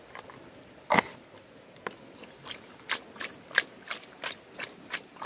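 A single sharp knock about a second in, then a regular rhythm of strokes, about three a second: an aluminium pot of salted river fish and tomato slices being shaken by hand to mix the salt through.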